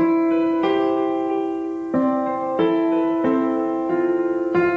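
Slow background piano music, with notes struck about once a second and left to ring.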